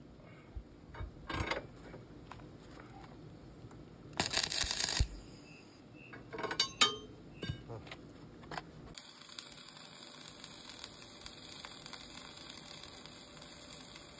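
A few sharp metal knocks and a short noisy burst about four seconds in. From about nine seconds in comes the steady crackling hiss of electric arc welding, as a steel rebar is welded onto the excavator's track frame to build up an edge worn too low, which lets the track come off.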